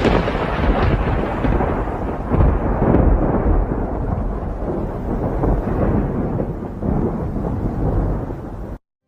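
Loud, deep rumbling noise, brightest at the start and slowly dulling, cut off suddenly near the end.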